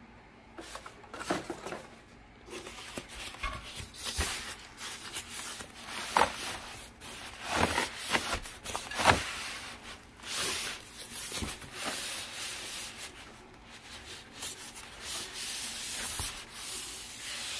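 Grey padded fabric wheel bags rustling and scraping against a cardboard box as they are handled, in irregular strokes of rubbing noise, the loudest about nine seconds in.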